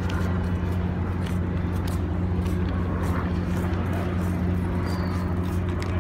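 A steady low mechanical hum, like an engine or motor running, with faint scattered clicks over it.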